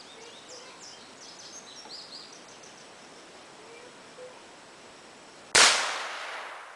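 A single gunshot about five and a half seconds in: one sharp crack that is by far the loudest sound, its echo dying away over about a second. Faint bird chirps come before it.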